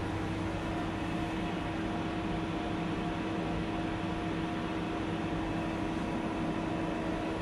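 Steady machine hum with a few fixed tones, unchanging throughout, from the powered-up Hyundai Wia HD2200Y CNC turning centre.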